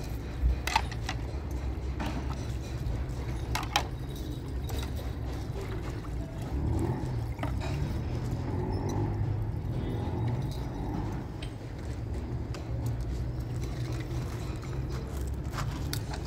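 Dishes being washed by hand: ceramic plates and a metal pot clinking sharply now and then, with water running from a hose into the pot. A steady low rumble runs underneath.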